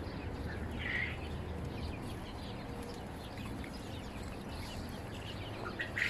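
Caged farm birds calling now and then: scattered short chirps, with one louder call about a second in, over a steady background noise.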